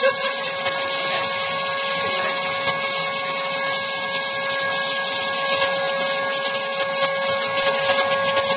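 Airbrush spray-tan turbine running with a steady high whine, over the hiss of air and tanning solution from the spray gun.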